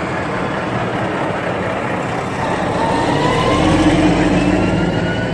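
Heavy truck engine running as it drives past, growing louder to a peak about four seconds in and then easing off, with a faint rising whine as it picks up speed.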